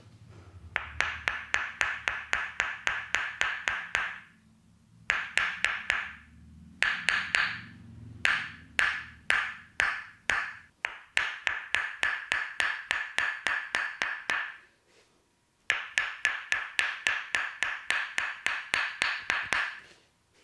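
Tok Sen massage: a wooden mallet rapidly tapping a wooden wedge against the shoulders, about five knocks a second, each with the same hollow wooden ring. It comes in several runs of a few seconds each, with short pauses between them.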